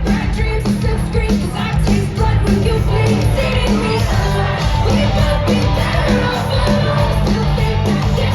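A live rock band playing loud music with a steady driving beat and singing in the mix, recorded from within a concert audience.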